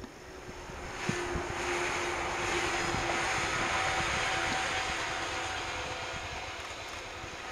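Shinano Railway 115 series electric multiple unit passing, its running noise swelling to a peak and then slowly fading as the train moves away, with a steady humming tone through the loudest part.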